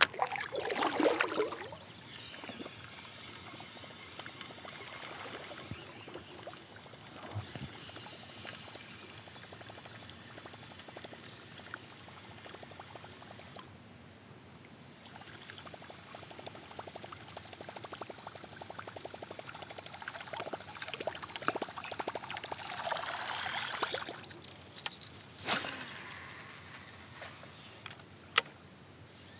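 Water splashing and trickling around a fishing kayak, with louder splashing about a second in and again a little after twenty seconds, and a couple of sharp knocks near the end.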